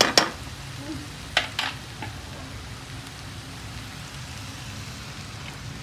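Chopped onion, tomato and capsicum sautéing in oil in a nonstick kadhai, with a steady sizzle as they are stirred. Sharp utensil taps on the pan right at the start and twice about a second and a half in.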